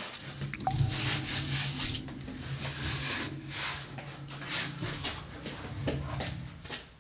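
Horror sound design: a low steady hum under a run of irregular hissing, rustling noise swells.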